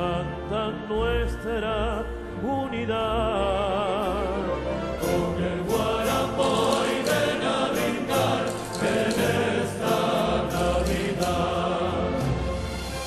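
A Canarian Christmas song performed live: a male solo voice sings with wide vibrato over a symphony orchestra. About five seconds in, a choir and the fuller ensemble come in, with a denser, rhythmic accompaniment.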